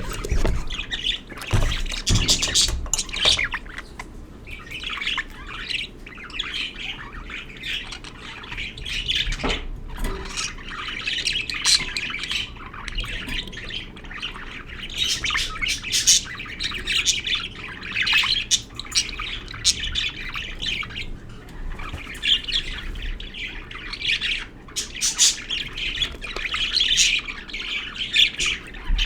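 Budgerigars chirping and squawking in many short, repeated calls, with a few knocks near the start and about ten seconds in.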